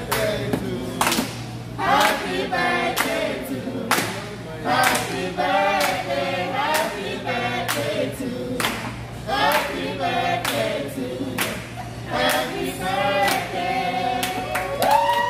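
A group of restaurant staff singing a birthday song together, clapping in time. Near the end they rise into a long held note.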